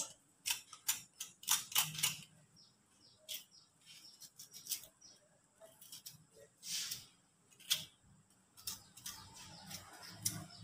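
Kitchen knife scraping and cutting the skin off a fresh root, galangal or ginger: a string of irregular short, sharp scrapes and clicks.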